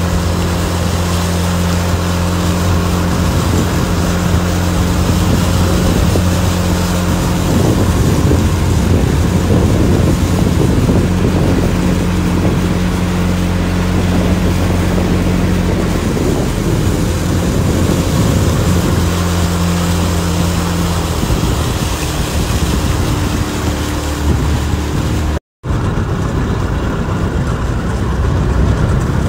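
A small motorboat's engine running steadily under way through floodwater, with water rushing past and wind on the microphone. The engine note shifts a few times, and the sound drops out for an instant near the end.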